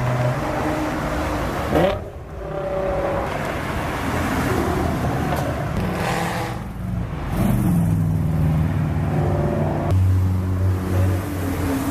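Car engines running and revving in short stretches that change abruptly about three times, with one brief rising rev about two seconds in.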